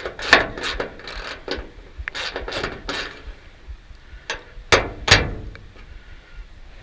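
Self-tapping screws being driven through a steel gate hinge into a chipper's sheet-metal lid. A fast run of repeated clicks lasts about three seconds, then three sharp metallic knocks follow about four to five seconds in.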